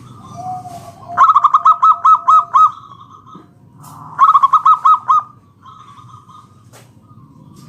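Zebra dove (perkutut) singing, a lure recording to draw other zebra doves into calling: two loud bursts of rapid, evenly spaced staccato notes, about six or seven in each, a couple of seconds apart, with softer calls between them.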